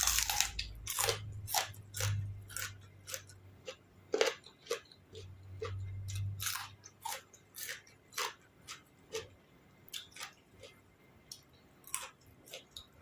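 Close-up chewing of crisp raw vegetables: sharp, irregular crunches about every half second.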